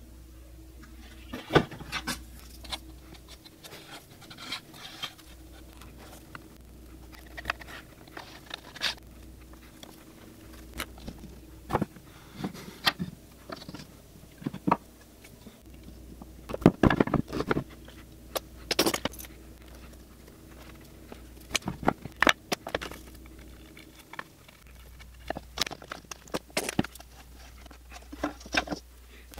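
Hardwood cutting-board strips of walnut and coffeetree knocking and sliding against one another as they are turned and pressed together during a glue-up: irregular wooden clicks and knocks, the loudest around 17 and 19 seconds in.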